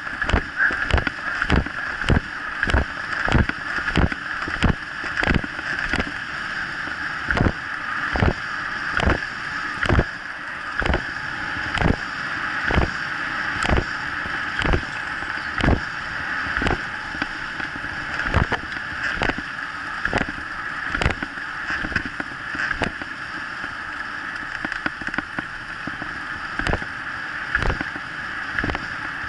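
Kick scooter rolling fast over a dirt trail: a steady rushing hiss of wind and tyres, with a regular thud about every two-thirds of a second.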